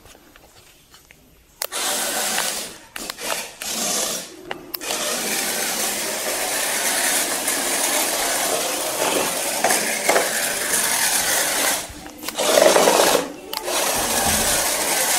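Small electric gear motors of a homemade four-wheeled RF-controlled robot car whirring as it drives. They run in short spurts over the first few seconds, then almost without a break, cutting out briefly about twelve seconds in.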